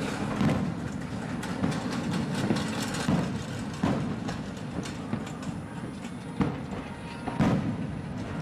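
Fireworks finale barrage: a continuous rumble of many overlapping shell bursts, with sharper bangs standing out now and then, the loudest about seven and a half seconds in.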